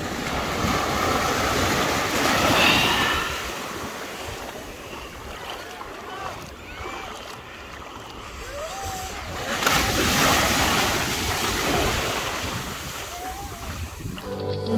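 Small waves washing up onto a sandy shore in shallow water, a steady surf wash that swells near the start and again about ten seconds in.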